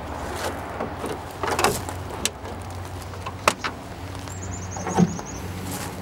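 Sharp clicks and knocks of a Jeep's rubber hood latches being unhooked and the hood being raised, a handful of separate clicks over a steady low hum.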